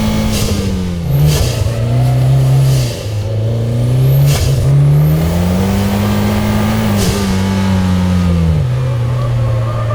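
Mitsubishi Lancer Evolution X's turbocharged 2.0-litre four-cylinder engine under hard driving: the revs drop about a second in, climb steadily for several seconds, then fall away again. High whistling sweeps from the turbo come and go around the rev changes.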